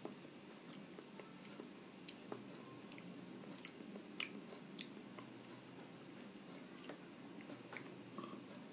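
Faint room tone with a few soft, scattered clicks, the sharpest about four seconds in.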